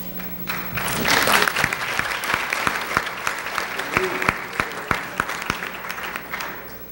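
Audience applauding: it swells about a second in, then thins to scattered single claps and dies away near the end.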